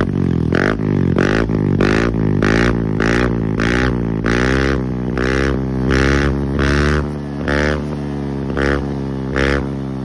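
Yamaha Aerox V2's 155 cc single-cylinder engine revved over and over through an Apido V2 adjustable aftermarket exhaust with its valve pulled open: about a dozen quick throttle blips, each rising and falling in pitch, evenly spaced at first and sparser in the last few seconds. Noisy with the valve open.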